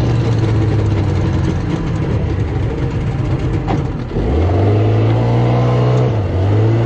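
Suzuki outboard motor running steadily. A little after four seconds in it revs up, rising in pitch, and holds at the higher note.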